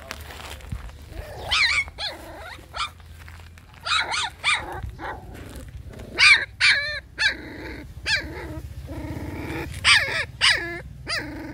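Young puppy crying: a string of short, high-pitched yelps and whines, each falling in pitch, about a dozen in all, with a couple of longer whines in the second half.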